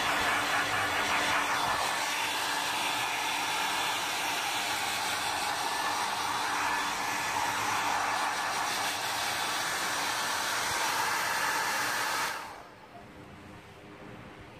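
Hand-held hair dryer blowing steadily on a wet puppy's coat, a constant airy rush that drops sharply to a much lower level about twelve seconds in.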